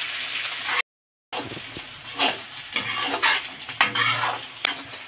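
Sliced onions and green chillies sizzling in hot oil in a metal kadai while a metal spatula stirs them, scraping and clinking against the pan. The onions are being fried until browned. The sound cuts out completely for about half a second near the start.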